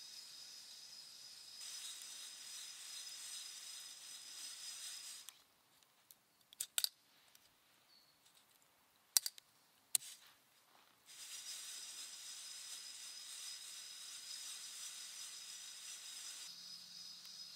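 Steady high-pitched drone of summer forest insects, which drops away for about six seconds. In that gap come a few sharp metallic clicks from a mesh hand roaster of green coffee beans held over charcoal: a quick cluster, then two single clicks. Then the insect drone returns.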